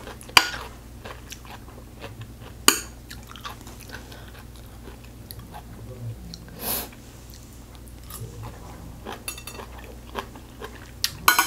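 Close-miked eating of kimchi: a crisp bite partway through, then chewing and crunching of the fermented cabbage. Sharp clicks of metal chopsticks against a plate come twice in the first few seconds.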